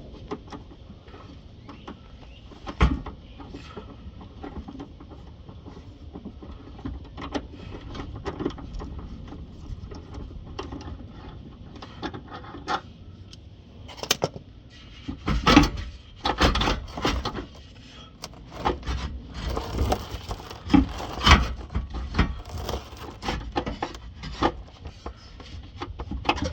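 Hand tools and the car's steel exhaust knocking, clinking and scraping as the rear muffler is unbolted and worked loose, with a run of louder clanks in the second half.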